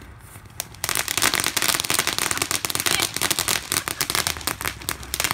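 Ground firework crackling: a dense, rapid run of small sharp pops that starts suddenly about a second in and keeps going.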